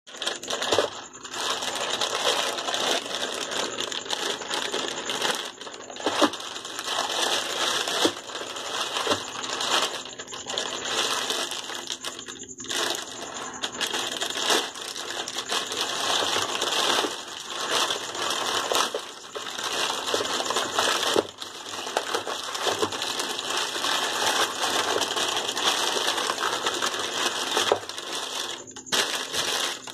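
Crinkly plastic packaging crackling and rustling without letup as hands work open a clear outer bag of wrapped Oreo cookie packs, with a few brief pauses.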